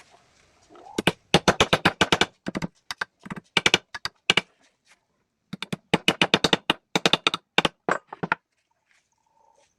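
Rapid series of sharp knocks, up to about nine a second, in two runs of a few seconds each with a short pause between.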